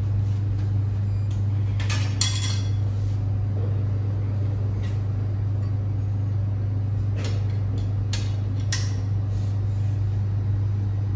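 Metal clinks and knocks from a drinks vending machine over a steady low hum: a cluster of clatters about two seconds in, then scattered clicks and clinks from about seven to nine seconds as the coins of change are taken from the coin return.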